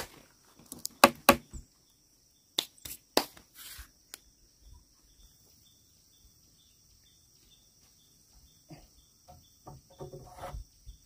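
Several sharp knocks of heavy wooden posts and beams being handled in the first few seconds, and a few softer knocks near the end. Between them, insects trill steadily in the background with a faint tick about three times a second.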